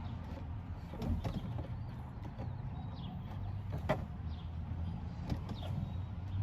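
Scattered light clicks and taps of parts being handled on a pickup truck door, with one sharper click about four seconds in, over a steady low hum.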